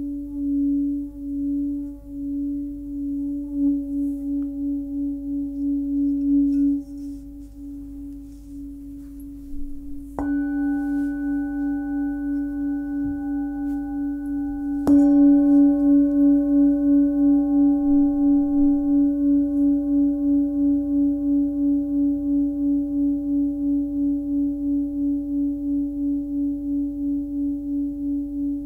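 Forged Tibetan singing bowl, 15.2 cm, tuned to C# at about 282 Hz, ringing with a slow pulsing waver. The tone fades, then the bowl is struck twice a few seconds apart, the second strike louder, and rings on with a steady pulsing beat.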